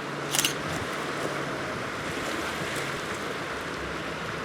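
Steady rush of wind and surf, with one short, sharp click about half a second in.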